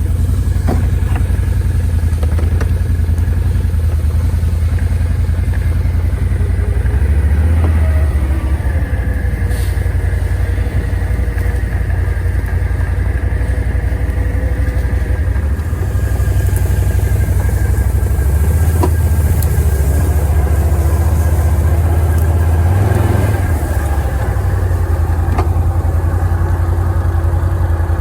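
Honda Rancher 420 ATV's single-cylinder engine running steadily while it drags a long locust log on a log hitch. The engine note rises a little a couple of times.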